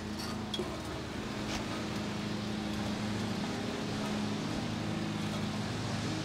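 Steady low motor hum, with a few faint clicks in the first two seconds.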